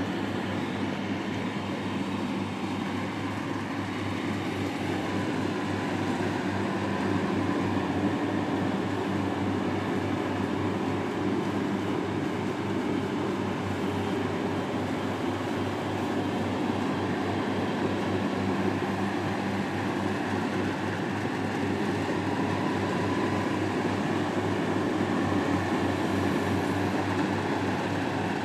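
A heavy machine's engine running steadily at constant speed, with an even low hum and no change in pitch or level.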